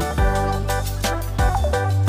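Background music with a steady beat over a held bass line and keyboard-like chords.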